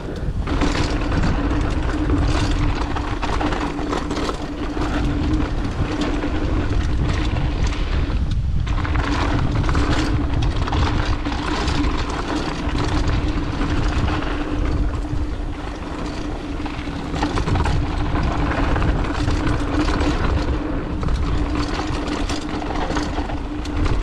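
Mountain bike riding fast down a dry, rough, rocky trail: tyres crunching and rattling over rocks and loose dirt, the bike clattering over braking bumps, with wind rumbling on the camera microphone. A steady hum runs under it, breaking off briefly about eight seconds in.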